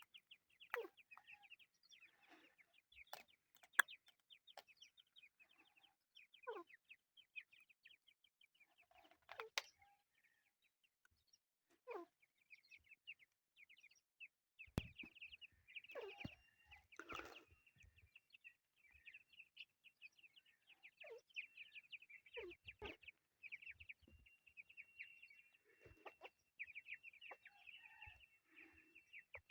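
Chukar partridge chicks peeping: a continuous stream of rapid, short, high cheeps, with a lower short call every few seconds and a few faint clicks.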